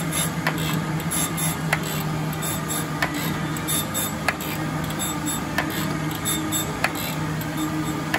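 Jones & Shipman 1400 surface grinder running with a steady hum, its wheel grinding steel discs under flood coolant as the table travels back and forth. A sharp click sounds about every second and a quarter.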